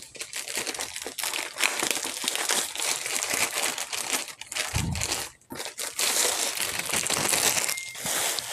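Thin plastic sleeve crinkling and rustling as it is worked off a rolled canvas by hand, with a brief pause about halfway through.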